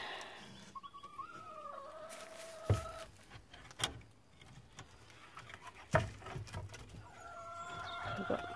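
Hens giving two long, drawn-out calls, a noise that she takes as a sign that one has just laid an egg. A few sharp knocks come in between as the nest boxes are handled.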